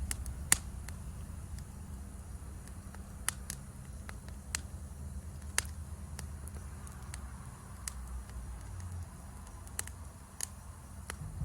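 Wood campfire crackling: sharp, irregular pops scattered over a low steady rumble. A faint, steady high-pitched insect chorus runs underneath.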